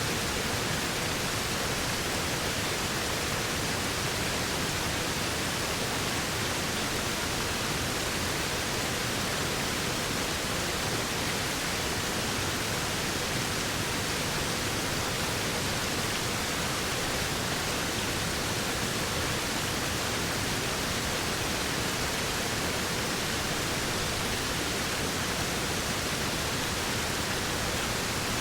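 Waterfall: a steady, unbroken rush of falling water, an even hiss spread from low to high pitches that never changes.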